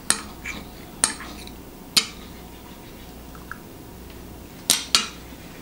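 Metal fork clinking against a plate while cutting a fried egg: three sharp clinks about a second apart, then two quick clinks close together near the end.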